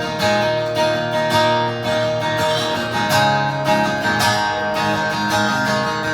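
Acoustic guitar strumming chords: the instrumental intro of a song, before the vocals come in.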